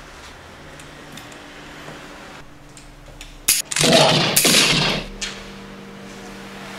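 Pistol gunfire: a sharp crack about three and a half seconds in, then a loud, noisy burst of shots lasting a little over a second, over a faint steady hum.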